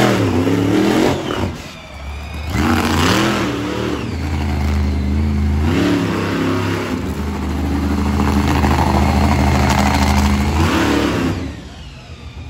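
Monster truck engine revving hard, its pitch climbing and falling several times, then held high for several seconds before dropping off near the end.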